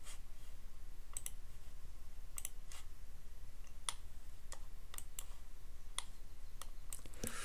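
Computer mouse clicking: about a dozen sharp, irregularly spaced clicks, some in quick pairs, over a low steady hum.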